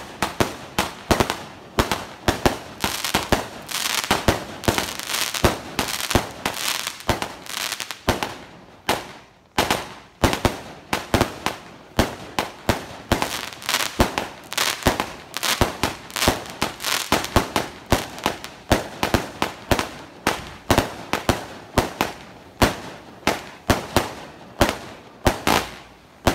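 Multi-shot aerial firework firing shot after shot: a steady run of sharp bangs, roughly two a second, as the shells launch and burst overhead.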